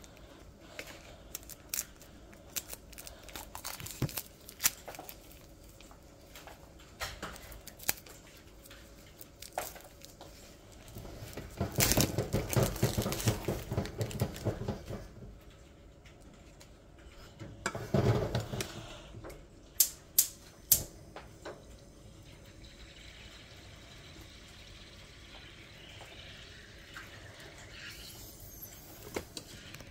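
Plastic wrap crinkling and rustling as it is peeled off a toy dinosaur egg, loudest for about three seconds near the middle and again briefly a few seconds later, with scattered clicks and taps. A faint steady hiss follows through the last third.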